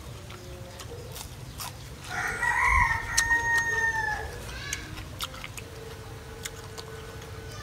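A rooster crowing once, a drawn-out call of about two seconds starting about two seconds in.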